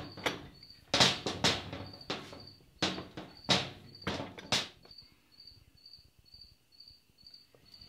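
Metal clunks and knocks as a Warn winch and its steel mounting bracket are shifted and handled on a workbench, several in the first four and a half seconds, then quieter. Throughout, a cricket chirps steadily, about two short high chirps a second.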